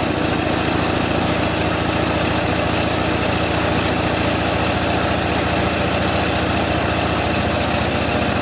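A Ural flat-twin motorcycle engine idling steadily, with an even, fast beat of exhaust pulses. It is being run during carburettor balancing, with the revs of its two cylinders being matched.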